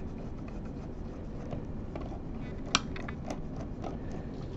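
Small T5 Torx screwdriver backing a tiny set screw out of a microscope's metal housing: faint scraping and light ticks, with one sharp click a little past halfway.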